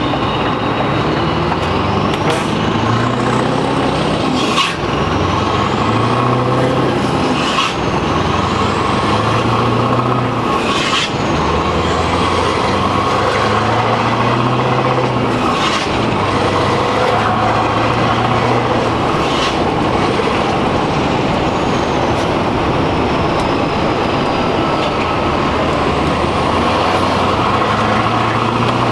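Scania R620's V8 diesel running loud and steady under way, heard from inside the cab, its low note stepping up and down every second or two with a faint whistle rising and falling above it.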